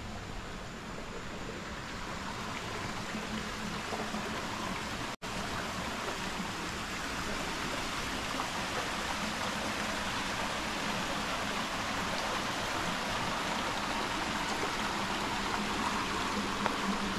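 Small rocky creek running, a steady rush of water that grows gradually louder toward the end, with a momentary break in the sound about five seconds in.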